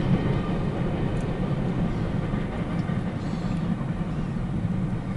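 Steady low rumble of a freight train rolling past, heard from inside a car.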